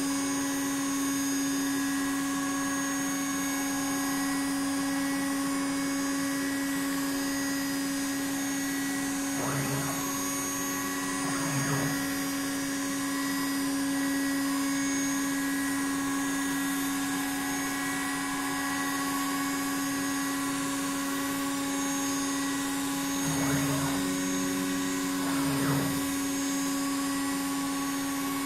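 CNC router spindle motor running with a steady, constant-pitch whine. Twice, near the middle and again near the end, the axis drive motors move the gantry, adding pairs of short lower motor tones with brief pitch glides.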